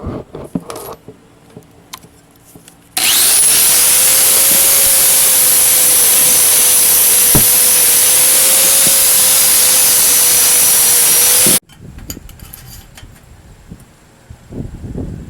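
Angle grinder running against steel for about eight and a half seconds, with a steady high whine over the grinding noise, as the motor mount is prepped for welding. It starts abruptly and cuts off suddenly, with light clicks and handling of the metal before and after.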